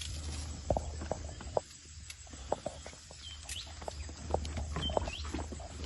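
Goats' hooves tapping and shuffling in irregular, scattered knocks, with a few short bird chirps over a steady low hum.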